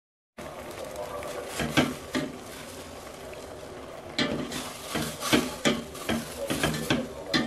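Metal ladle stirring chayote leaves into coconut milk in a stainless steel pot, with a steady hiss. Clinks and scrapes of the ladle against the pot come twice early and then in quick succession, about three a second, through the second half.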